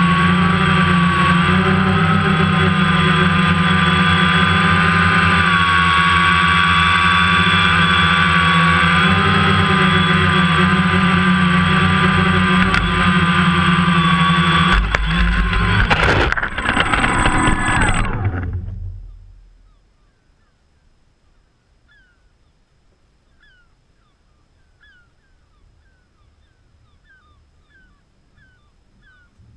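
Multirotor camera drone's motors and propellers whining steadily. As it comes down onto shingle, a few knocks are heard, then the motors wind down and stop about 19 seconds in. Faint bird chirps follow.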